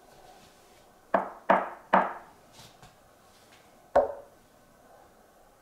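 Hand knocks on the REL HT 1205 subwoofer's MDF cabinet in a knock test for cabinet resonance: three quick knocks about a second in, then one more near the four-second mark. Each knock dies away quickly, and the owner judges the cabinet nicely constructed.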